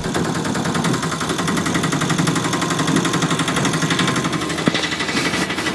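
Auto-rickshaw engine running steadily with a fast, even chug as the three-wheeler drives along.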